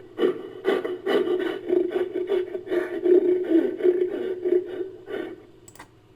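Sound-designed monster call: a rough, stuttering growl of rapid uneven pulses on one steady pitch, which stops about five seconds in.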